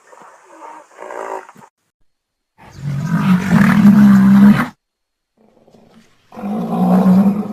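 African rhinoceros calling: a few short faint calls at first, then a loud, drawn-out call lasting about two seconds, and another loud call starting about six seconds in.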